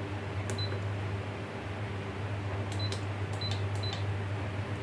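Control-panel buttons of an electric double-boiling slow cooker being pressed to set the cooking time, each press a short click with a high beep: one about half a second in, then four or five in quick succession about three to four seconds in. A steady low hum runs underneath.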